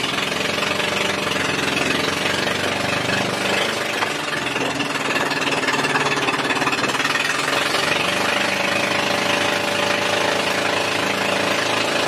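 Engine of a bangka outrigger boat running steadily under way, heard close up from on board as a loud, fast, even chugging.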